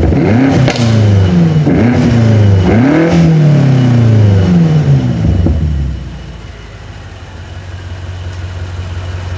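BMW M5 Competition's twin-turbo 4.4-litre V8 heard at the exhaust, revved in three quick blips with the exhaust valves open in Sport Plus, with a sharp crack on two of them. The revs then fall away slowly and settle to a steady idle about six seconds in.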